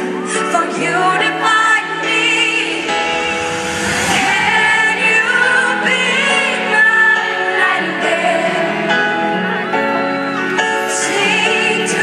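Female pop singer singing a slow ballad live over sustained backing chords, holding long notes with vibrato, recorded from the audience in an arena.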